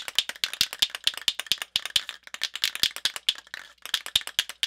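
Aerosol spray can of clear coat being shaken, its mixing ball rattling in quick sharp clicks, with a couple of short breaks.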